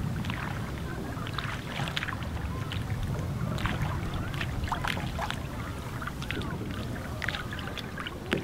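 Water lapping and splashing in many small, quick ticks around the hull of a pedal-driven fishing kayak moving across a lake, over a low, steady rumble.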